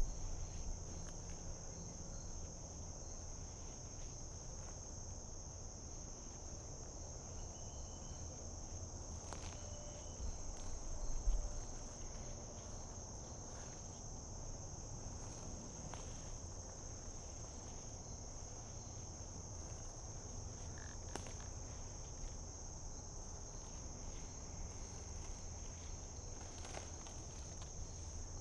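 Steady high-pitched drone of a woodland insect chorus, with an occasional faint click or rustle.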